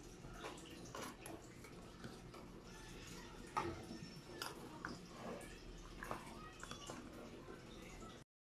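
Metal spoon scraping and clinking inside a tin can as wet cat food is scooped out into a plastic container: faint, scattered short clicks and scrapes with soft wet sounds.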